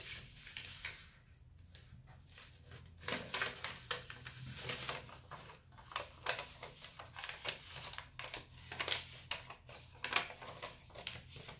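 A sheet of origami paper rustling and crackling in irregular bursts as hands crease it, press it flat and open it out into a pocket fold.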